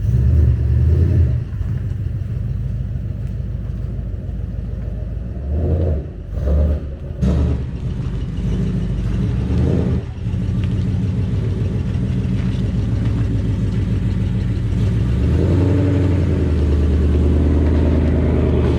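Ford Mustang GT's 5.0-litre V8 running while driving. The engine note dips briefly around six, seven and ten seconds in, then grows louder and stronger from about fifteen seconds in.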